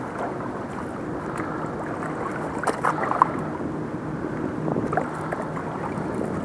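Steady rushing noise of wind and river water, with a few light clicks and knocks around the middle.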